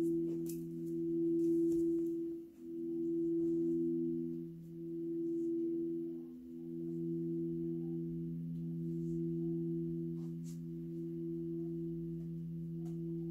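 Alchemical quartz crystal singing bowls ringing together as several steady pure tones, swelling and fading about every two seconds at first, then evening out. A lower bowl tone comes in strongly about six seconds in.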